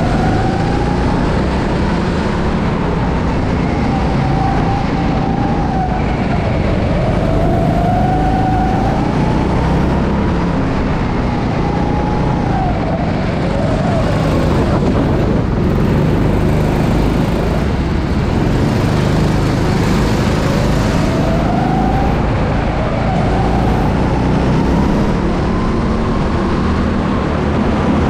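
Go-kart engine running, its pitch rising and falling again and again as the throttle is opened and closed, over a steady loud rushing noise.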